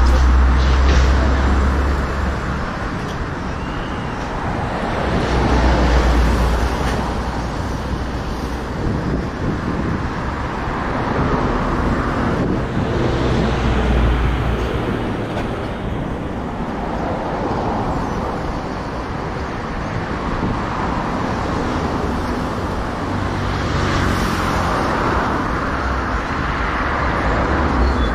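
Road traffic going by close at hand: cars and heavier vehicles passing one after another, the noise swelling and fading every few seconds with deep rumbles as the bigger ones pass.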